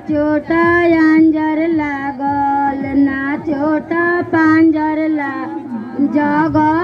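A woman singing a Bhojpuri wedding song in long, held notes that waver and slide in pitch.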